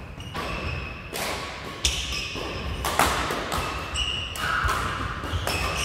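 Badminton rally: rackets striking the shuttlecock with sharp cracks roughly once a second, and court shoes squeaking on the wooden floor between the shots.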